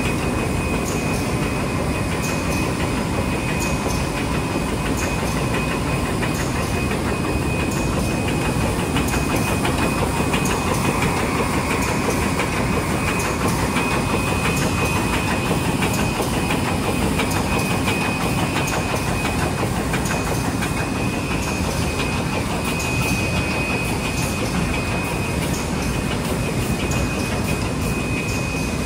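Mini wet-wipe making machine running steadily: a constant mechanical whir with a thin high whine and a light click repeating about once a second.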